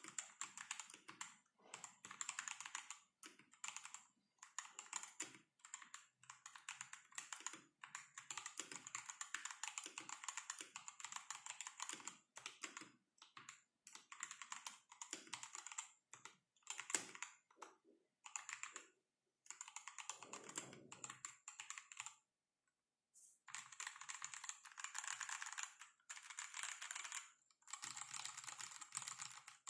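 Typing on a foam-dampened Rexus Daxa M71 Classic mechanical keyboard with Gazzew Boba U4T tactile switches and PBT XDA-profile keycaps. The keystrokes come in fast runs of a few seconds, with short pauses between them.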